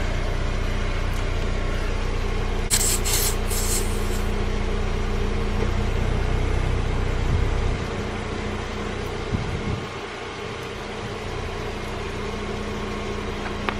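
Short hiss of air escaping from a car tyre's valve stem about three seconds in, as a portable compressor's hose chuck is threaded onto it, over a steady low hum.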